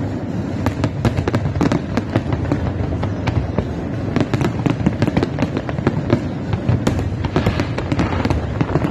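Aerial fireworks display going off in a continuous volley: many sharp bangs and crackles, several a second, over a steady low rumble.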